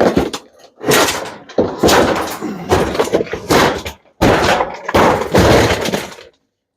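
Stripped dishwasher and its scrap parts being handled: loud clattering, scraping and knocking in three long stretches that stop abruptly about six seconds in.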